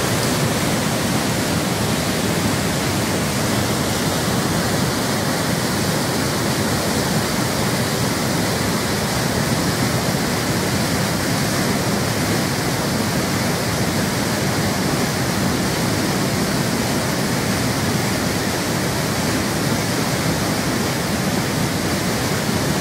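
Loud, steady rush of a river waterfall, whitewater pouring down over rocks.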